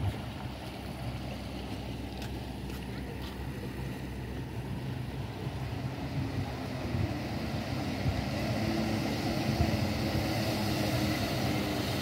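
Boat engines on the water: an excursion boat's engine running as it moves past, then from about the middle a jet ski's engine growing louder as it approaches.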